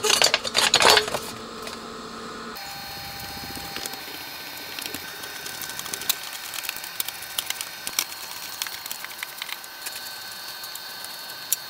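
Brief loud rubbing and handling noise in the first second or so, then a hand screwdriver turning small screws into a vintage amplifier's sheet-steel chassis as the front panel is fastened back on: scattered light metallic clicks and scrapes.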